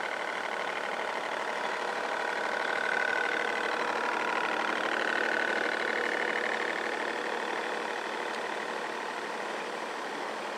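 Radio-controlled model boats running on the water: a steady mechanical drone with a fast, even pulse and a whine that grows louder a few seconds in, then eases off near the end.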